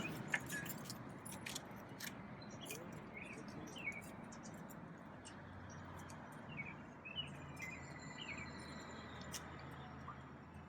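Faint outdoor ambience: scattered short bird chirps over a low steady hum, with a few light clicks.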